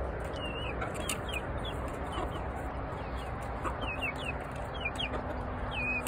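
Chicks peeping in scattered short, high chirps, several in quick succession at times, with the hens of the pen around them. A faint steady hum comes in about two seconds in.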